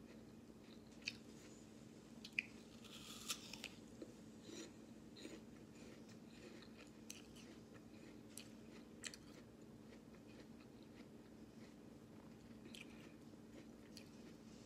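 Faint, close crunching and chewing of a raw apple slice: a few sharp crisp crunches in the first few seconds as it is bitten, then lighter chewing clicks that thin out about halfway through.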